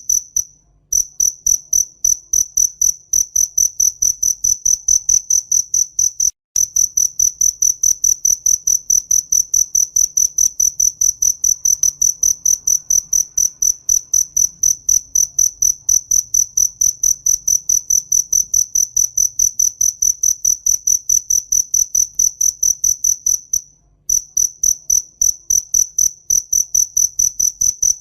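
A cricket chirping in a steady, even rhythm, about three high-pitched chirps a second, with a few brief breaks in the song.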